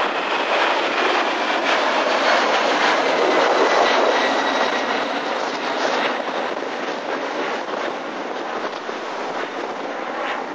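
Boeing 767-300ER airliner's twin turbofan engines at takeoff thrust as it climbs out overhead. A broad jet roar with a faint high whine builds to its loudest about three to four seconds in, then fades as the aircraft climbs away.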